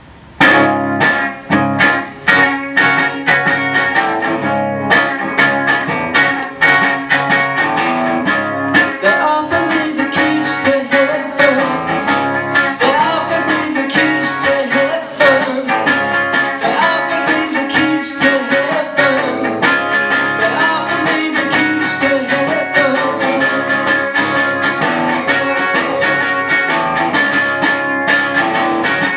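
Hollow-body electric guitar played live through a small amplifier, starting abruptly about half a second in: an instrumental passage of picked notes and chords.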